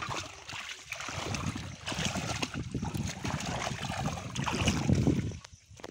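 Shallow pond water sloshing and splashing as a person wades and works in it by hand among floating water plants, in an irregular stream of small splashes and knocks, loudest shortly before the end.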